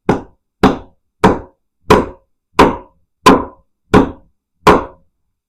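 Freshly sharpened Harbor Freight axe chopping into a willow log: eight even strikes, about one and a half a second. The edge is biting into the wood.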